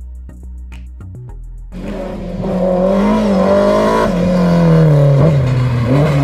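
Light background music for the first couple of seconds. Then a white BMW E30's engine comes in loud and held at high revs, its pitch rising and falling as the car drifts through a hairpin.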